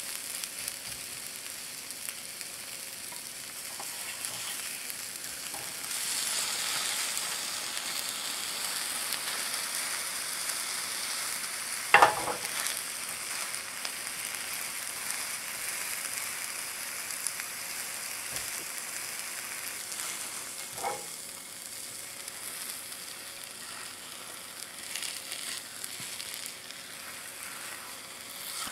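Egg-and-cheese omelet sizzling in a rectangular nonstick pan as a silicone spatula works it and folds it over, the sizzle growing louder a few seconds in. A sharp knock partway through is the loudest sound, with a smaller knock later.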